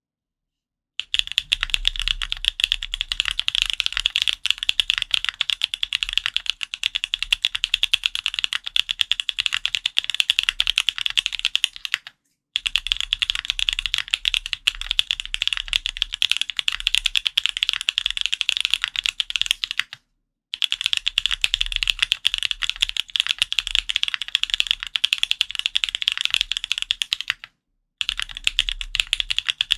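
Typing on a QK Neo65 custom mechanical keyboard with lubed TTC Holy Panda tactile switches on a carbon fibre plate: fast, continuous keystrokes starting about a second in, broken three times by brief gaps of dead silence.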